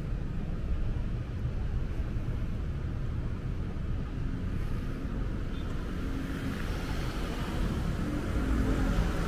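Street traffic: a steady low rumble of cars, with a vehicle coming closer and growing louder over the last few seconds.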